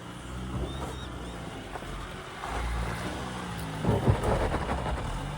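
GWM Tank 300 4x4 running at low revs as it creeps slowly over rough off-road ground, with a louder crunching, scraping stretch about four seconds in.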